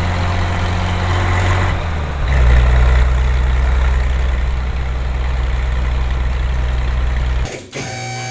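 Car engine running at idle with a deep, steady rumble that gets louder about two seconds in, then cuts off abruptly near the end.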